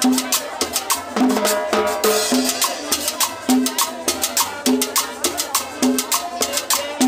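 A live cumbia band playing, with a guitar over a steady beat of sharp, evenly spaced percussion clicks and a repeating bass note.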